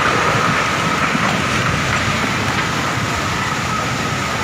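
Floodwater rushing past in a steady, loud wash of noise.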